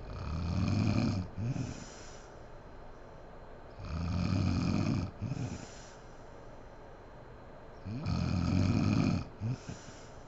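A sleeping woman snoring loudly: three snores about four seconds apart, each a long rasping in-breath followed by a short broken sound.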